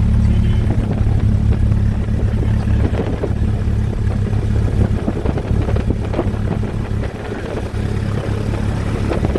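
A Cessna 172's carbureted piston engine and propeller running steadily, as heard inside the cockpit, just after a cold start and held near a 1,000 rpm idle.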